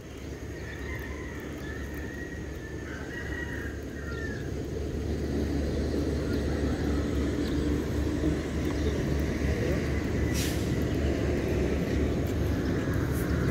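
Low rumble of road traffic, growing steadily louder, with a rooster crowing about a second in.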